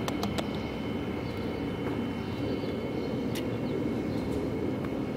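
Steady low outdoor background rumble, with a few faint ticks near the start and once in the middle.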